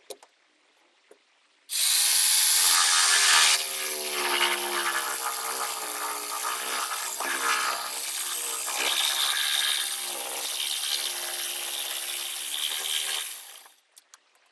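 An electric power tool starts about two seconds in and runs for around eleven seconds, its motor pitch dipping and recovering as it bites into the material, most likely cutting out rotted stringer wood and foam, then winds down near the end.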